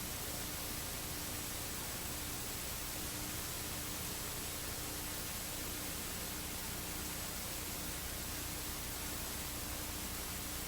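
Steady, even hiss of background noise with a faint low steady hum underneath; nothing else happens.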